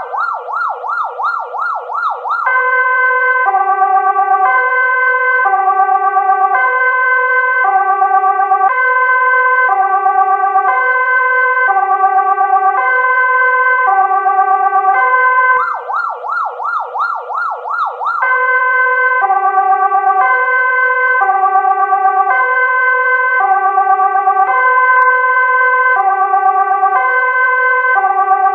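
Electronic ambulance siren switching back and forth between two pitches in an even, steady rhythm. Twice, at the start and about halfway through, it breaks into a couple of seconds of very fast warbling before returning to the two-tone pattern.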